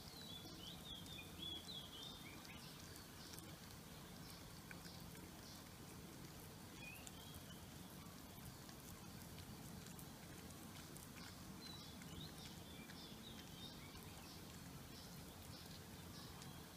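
Very quiet: faint chirps, like small birds calling in the background, in a few short bursts about a second in, around seven seconds and around twelve seconds, over a low steady hum.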